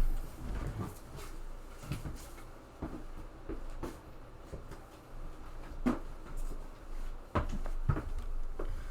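A front door being pushed and handled as an intruder is forced out of the doorway: a series of scattered soft knocks and thumps with rustling between them.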